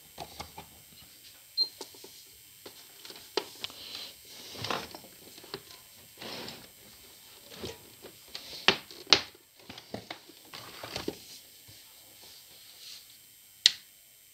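Irregular clicks, knocks and rustles from a plastic kitchen mixer and its mains cable being handled, with a sharp, loud click near the end.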